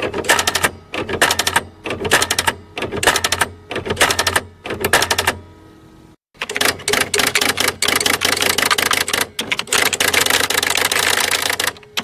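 Electric typewriter being typed on: rapid runs of key strikes in bursts with short pauses, over a steady low hum. About halfway through the typing stops briefly, then resumes in a long, unbroken stretch of fast keystrokes.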